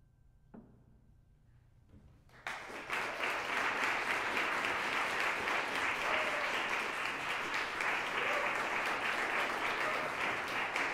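Near silence with a single knock about half a second in, then audience applause starts about two and a half seconds in, swells within half a second and continues steadily.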